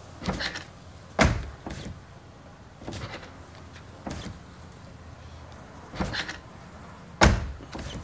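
Corvette C6 Z06 door being worked with its electronic touch-pad release: lighter clicks and latch pops, and two heavy door thunks, one about a second in and the loudest near the end. The release is being tested after its switch contacts were cleaned with electrical contact cleaner, and it now opens easily.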